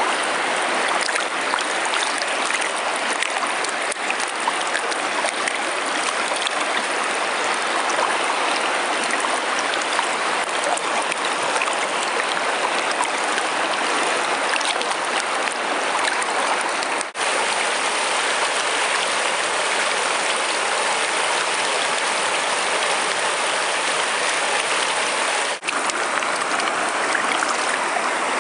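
River rapids rushing steadily, an even wash of water broken by two momentary gaps about halfway through and near the end.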